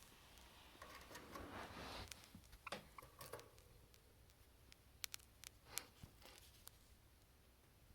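Faint sounds of a Java sparrow feeding on komatsuna leaves: a soft rustle about a second in, then scattered sharp clicks of beak on leaf.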